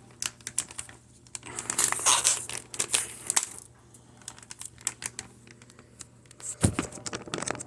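Plastic resealable bag crinkling and rustling in bursts as it is handled and pulled open, with a dull knock near the end.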